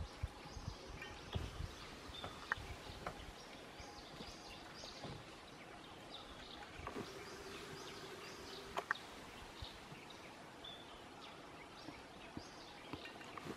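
Forest ambience with scattered short bird chirps and a few sharp clicks, two close together about nine seconds in; a low rumble at the start.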